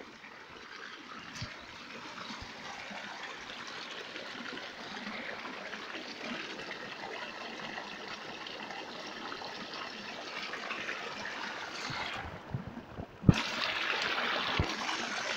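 Muddy wastewater from mineral washing running through a channel in the soil, a steady trickle that slowly grows louder. About 13 seconds in there is a sharp knock, then a louder rush of flowing water.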